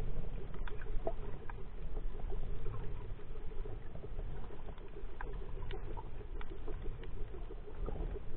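Muffled underwater ambience heard through a camera's waterproof housing: a steady low rumble with scattered faint clicks and crackles.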